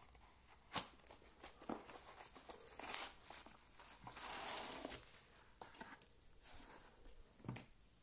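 A small cardboard box being opened by hand and a bubble-wrapped flashlight slid out of it: sharp cardboard clicks and scrapes, with a stretch of plastic bubble wrap crinkling about halfway through.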